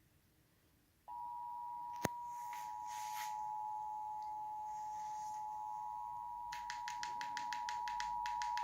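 Emergency Alert System two-tone attention signal: a steady dual-tone alert sounding for about eight seconds, starting about a second in. It announces an urgent National Weather Service tornado warning. A sharp click sounds about two seconds in, and a rapid series of clicks runs under the tone near the end.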